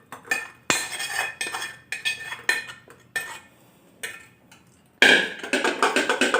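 A spoon clinks and scrapes repeatedly against a pan and cup as thick besan sheera is served, in short separate strokes with brief ringing. About five seconds in, a louder, denser sound starts abruptly.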